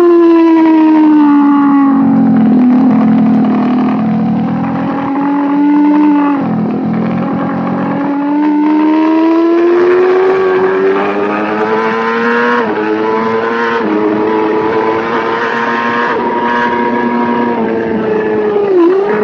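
Race motorcycle engine heard from an onboard camera on the bike, with wind rushing over the microphone. The revs fall steadily for about six seconds, drop away briefly, then climb again as the throttle opens, with a quick hitch in pitch later on before holding steady.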